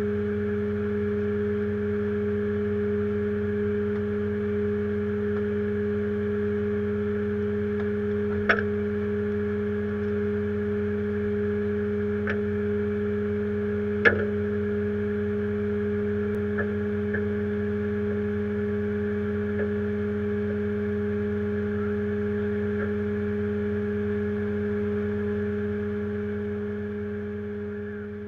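Rollback tow truck's engine running with a steady hum, broken by a few sharp metallic clanks in the middle; the sound fades out near the end.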